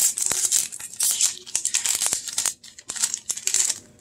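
Foil wrapper of a baseball card pack crinkling and tearing as it is pulled open by hand, in a run of uneven bursts of rustle.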